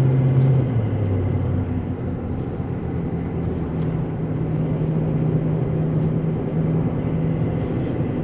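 Pickup truck's engine and road noise heard inside the cab, the truck carrying a slide-in camper up a steep, winding grade. The engine note drops about a second in and rises again about three seconds in, then holds steady.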